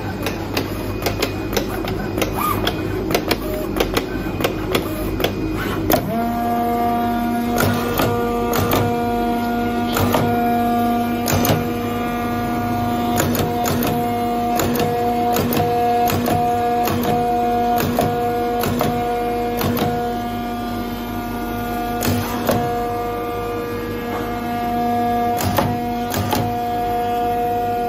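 IECHO PK0705 Plus flatbed digital cutter cutting 5 mm corrugated cardboard: the cutting head's mechanism gives frequent sharp clicks and knocks. A steady motor whine comes in about six seconds in and holds, dipping briefly twice near the end.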